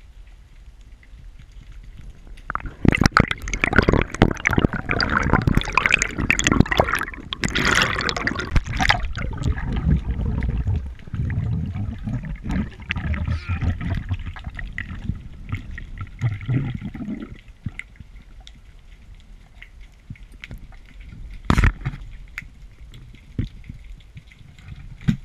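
Underwater sound through a GoPro's waterproof housing: water rushing and bubbling with crackling clicks. It starts about two and a half seconds in, eases off after about fifteen seconds, and one sharp knock comes near the end.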